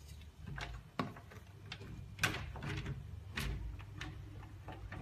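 A sliding window being handled and shut: scattered knocks and clicks of the frame, the loudest about two and three and a half seconds in, over a low rumble of handling.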